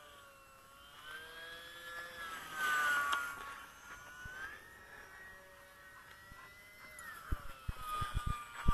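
Electric motor and propeller of a UMX Pitts RC biplane whining in flight, its pitch rising and falling, loudest a little under three seconds in. A run of low thumps starts near the end.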